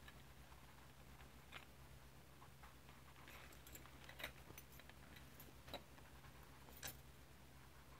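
Near silence: a few faint ticks from a blending stick smudging oil pastel on paper, over a low steady hum.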